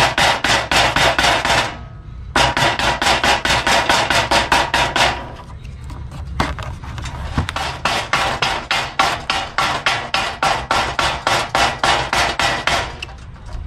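Ball-peen hammer tapping rapidly on cardboard laid over a metal part, about four to five light strikes a second, cutting the cardboard along the part's edge into a template. The tapping breaks off briefly about two seconds in, goes softer around five to six seconds in, and eases near the end.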